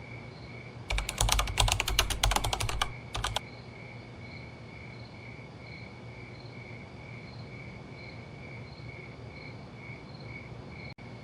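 Rapid clicking for about two seconds, with a short second flurry just after, then a high-pitched chirp repeating about twice a second.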